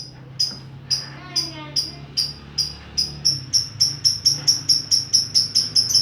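Pet songbird giving a run of short, sharp high chirps that speed up from about two a second to about five a second, with a faint sliding warble about a second in.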